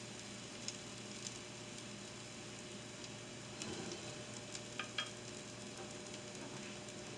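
Pancake batter frying in oil in an Oster electric frying pan: a steady soft sizzle with small crackles. A few light clicks come about four to five seconds in.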